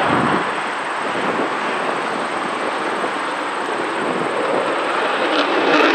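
Lockheed Martin F-35 fighter's single F135 turbofan heard in its take-off climb: a steady, loud rush of jet noise.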